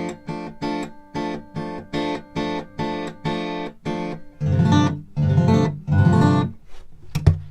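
Acoustic guitar fitted with a K&K pickup and preamp, played through a battery-powered acoustic amplifier: evenly picked chord strokes about three a second, then three louder, fuller strums about halfway through, and sharp percussive knocks near the end.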